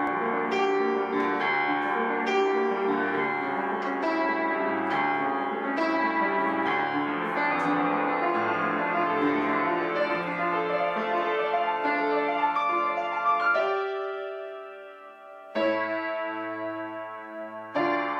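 Background piano music: a flowing run of notes that fades away about fourteen seconds in, then two loud struck chords that ring on near the end.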